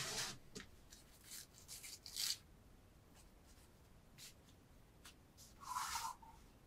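A kitchen knife blade slicing through paper strips: several short, light scraping swishes, the loudest right at the start and another near the end.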